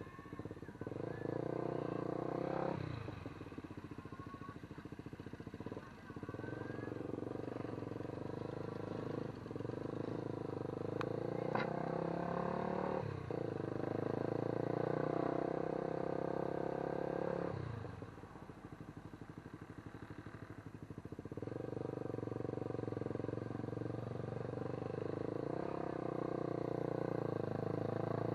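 A motor vehicle's engine running steadily, its level and pitch shifting every few seconds as it speeds up and slows down.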